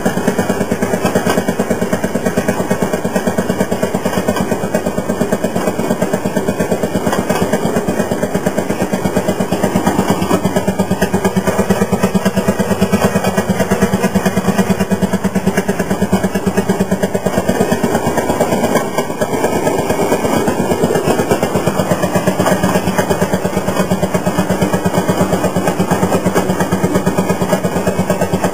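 Fairmont M-19 railroad motorcar's one-cylinder two-stroke 5 hp engine running under way, a steady, rapid putt-putt of firing pulses. It eases briefly about two-thirds of the way through, then picks up again.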